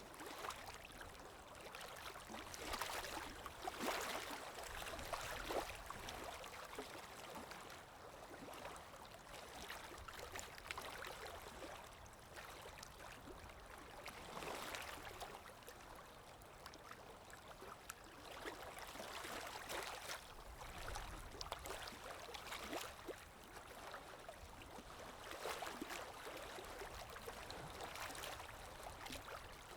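Sea waves washing in and drawing back, swelling and fading every four to six seconds, with a fizzing crackle at each surge.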